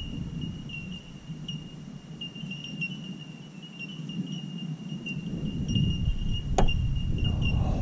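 Low rumbling handling noise as an aluminium-poled landing net is worked through the water at the boat's side, louder in the second half, with one sharp click about six and a half seconds in. A steady high chirring, like insects, runs behind it.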